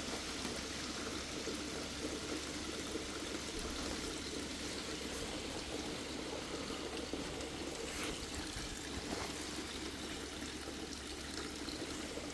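A steady rushing noise with a low hum beneath it, and a faint click about eight seconds in.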